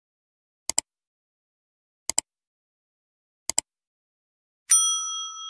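Three quick double clicks of a click sound effect, about a second and a half apart, then a bright bell ding near the end that keeps ringing and slowly fades: the sound effects of an animated like, share and subscribe button with its notification bell.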